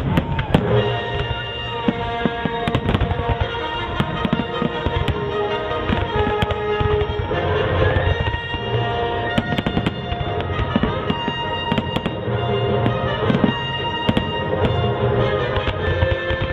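Fireworks display: aerial shells bursting in a quick, irregular run of bangs and crackles, with music playing throughout.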